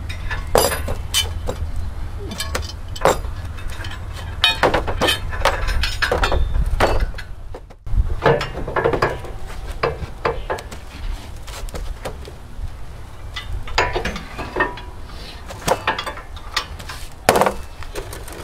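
Irregular metal clanks and knocks of steel suspension parts and hand tools as a trailing arm is worked into place on a rear axle.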